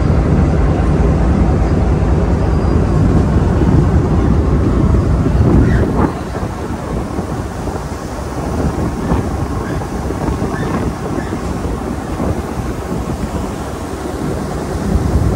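Steady low rumble of a moving car ferry's diesel engines heard on board. It becomes noticeably quieter and less bassy about six seconds in.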